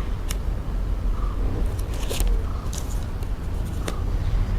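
Small handling noises as an adhesive-backed part is pressed into place on a plastic ab roller: a sharp click near the start and a short scraping rustle about two seconds in, over a steady low hum.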